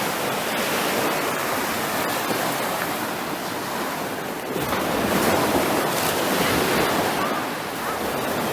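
Sea waves washing on the beach, a steady rush that swells louder about five seconds in.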